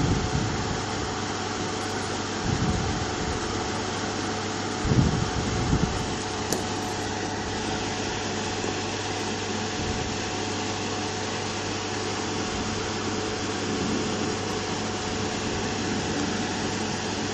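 Hot-air rework station blowing a steady stream of air, a constant hiss with a low hum, while reflowing solder under a QFN64 chip and then being held farther from the board to ramp the temperature down. A few low thumps sound, the loudest about five seconds in.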